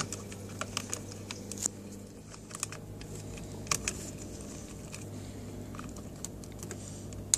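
Scattered light plastic clicks and taps as a coffee machine's milk nozzle is fitted back into its holes and pushed into place, over a low steady hum.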